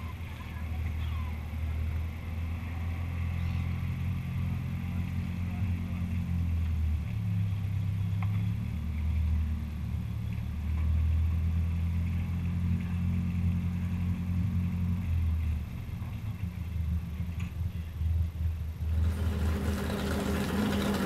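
Tractor engine running, its revs stepping up and down. Near the end it gives way abruptly to hose water spraying.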